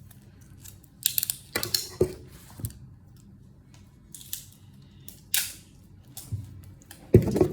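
Handling sounds from small plastic toy bracelet pieces being fitted together: several short rustling and crinkling bursts with a few clicks, and a louder bump near the end.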